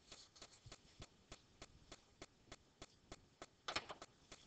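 Near silence with faint, regular ticking, about three ticks a second, and a short soft noise about three and a half seconds in.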